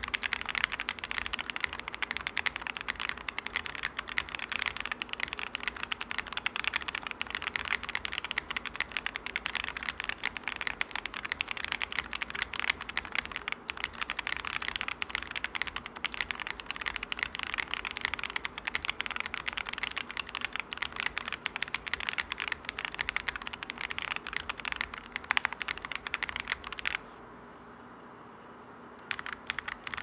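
Fast typing on a custom mechanical keyboard: a KBDFans Tiger80 with Zenclack Turbulence tactile switches on a polycarbonate plate, gasket-mounted, with GMK keycaps and a tape mod. A dense clatter of keystrokes breaks off for about two seconds near the end, then resumes.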